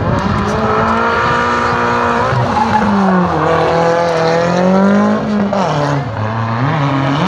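Drift car's engine revving hard while sliding through a corner. Its pitch sags and climbs several times as the throttle is worked, dropping sharply near the end before picking up again.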